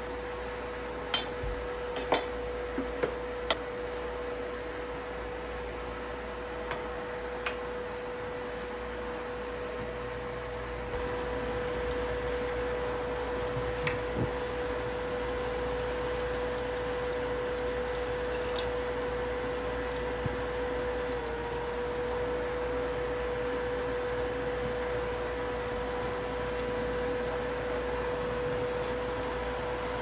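Portable induction cooktop running with a steady hum, under a pot of sauce simmering and bubbling. A few light clinks of kitchenware come in the first few seconds.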